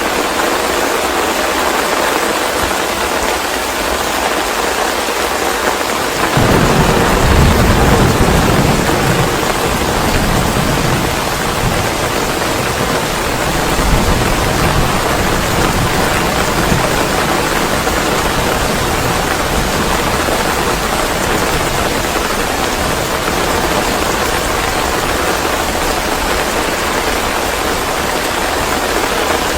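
Steady, loud rain hiss, with a deep roll of thunder that sets in suddenly about six seconds in and rumbles on, swelling again around the middle.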